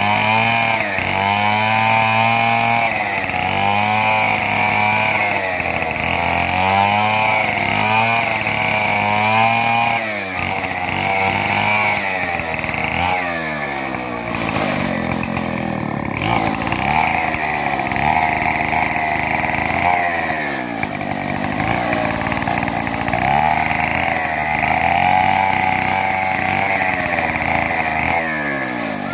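Chainsaw ripping lengthwise through timber, its engine running hard with the pitch repeatedly sagging and picking back up every second or two as the chain bites and eases in the cut.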